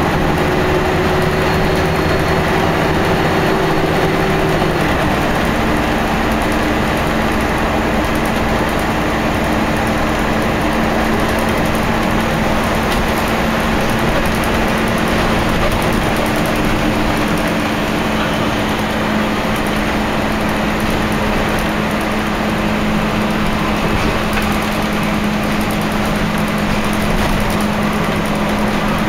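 Scania L113CRL bus's rear-mounted 11-litre six-cylinder diesel heard from inside the passenger cabin while under way. About five seconds in the engine note drops as the gearbox changes up. It then drones steadily at cruising speed over road and body noise.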